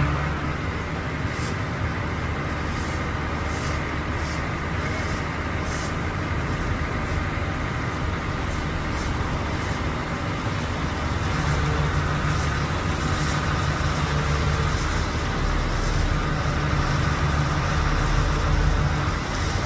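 A large engine running steadily at a constant pitch, with faint intermittent ticks over it.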